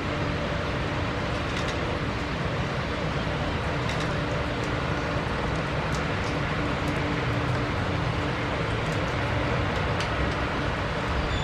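Twin jet engines of a taxiing Boeing 767-300ER freighter running at taxi idle: a steady rushing noise with a steady low hum underneath.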